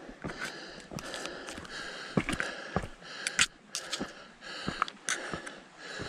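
Footsteps crunching on a dirt and loose-gravel trail at a steady walking pace, with the hiker's breathing heard in long breaths between the steps.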